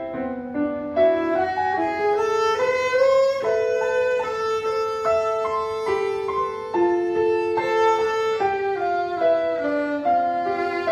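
A newly bought violin playing a slow melody of held notes that move step by step. The player himself calls its sound a little out of tune.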